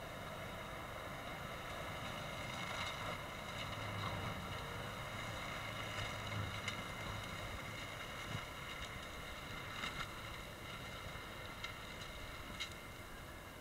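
Tractor-driven forestry mulcher running while it grinds brush: the tractor engine and the spinning mulcher drum drone steadily, with a few sharp clicks and cracks over it. It fades slightly near the end.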